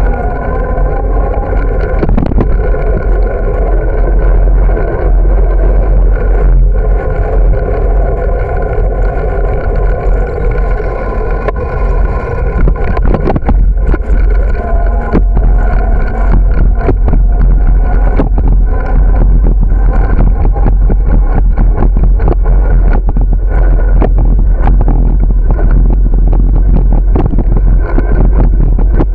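Riding bicycle with its on-board camera: a loud, steady low rumble of wind and road vibration, with a constant clatter of the bike and mount rattling. The jolts come thicker from about twelve seconds in, as the tyres roll over the joints of a concrete sidewalk.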